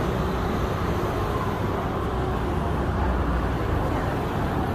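Steady street traffic noise: the low, even rumble of motor scooters and cars going by.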